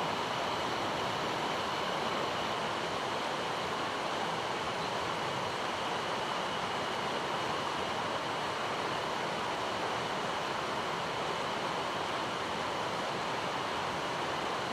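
Mountain stream rushing over rocks: a steady, unbroken water noise.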